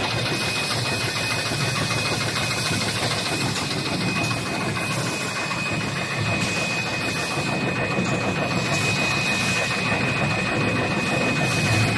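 Automatic wet wipes folding and packaging machine running: a steady mechanical clatter and hum with a constant high-pitched whine.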